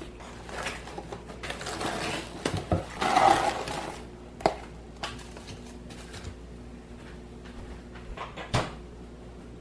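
Indoor handling noises: a few seconds of rustling and clatter, loudest about three seconds in, then two sharp knocks, one near the middle and one near the end.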